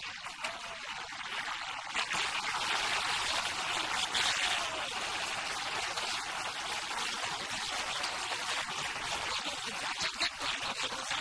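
Football stadium crowd cheering a goal: a dense wash of noise that swells about two seconds in and holds.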